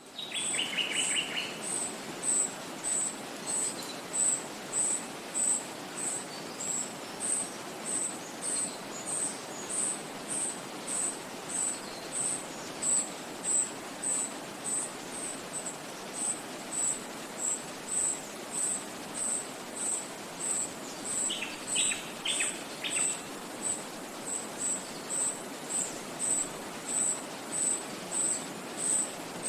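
Forest ambience: a steady rush of wind in the trees and a stream, with a high, thin chirp repeating evenly about one and a half times a second throughout. Short bird trills come right at the start and again about two thirds of the way through.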